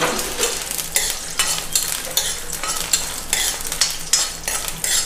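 A spatula stirring and scraping in a hot kadai, about two or three strokes a second, over oil sizzling steadily as ingredients for the chutney fry.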